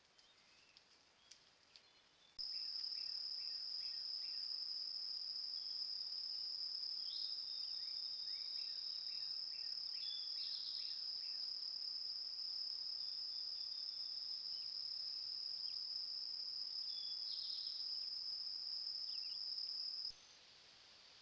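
A steady, high-pitched insect drone in summer woodland, with a bird singing short chirping phrases over it. It starts suddenly about two seconds in and cuts off just before the end.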